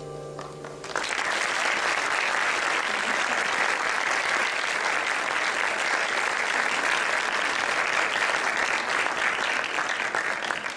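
The orchestra's final chord dies away over about a second, then audience applause starts and goes on steadily.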